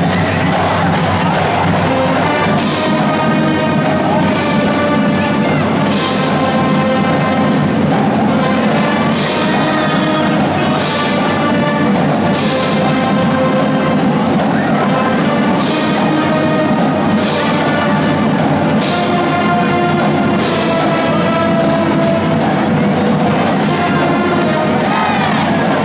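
Marching band playing a brass tune with drums, a cymbal crash landing about every second and a half on the beat.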